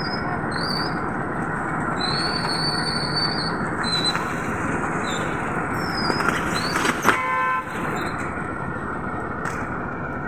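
Steady road-traffic noise with several short high-pitched squeals during the first half, and one short vehicle horn honk about seven seconds in.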